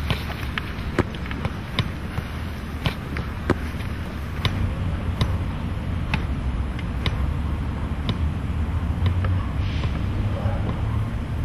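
A soccer ball being kicked and juggled on the foot: sharp thuds about once a second over a steady low rumble.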